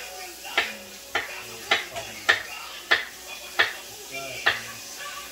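Kitchen knife slicing potatoes on a cutting board: a steady run of sharp taps, about one every half-second to two-thirds of a second.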